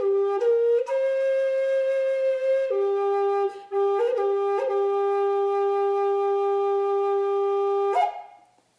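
Solo woodwind melody played slowly in long held notes with small ornaments, ending on a long low note that stops about eight seconds in and dies away.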